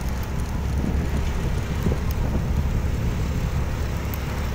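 Wind buffeting the microphone over the steady low noise of a motorcycle under way.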